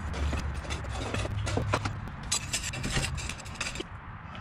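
A hand tool scraping old caulk and debris off the wooden frame of an emptied window opening: a quick run of irregular scrapes and clicks that eases off near the end.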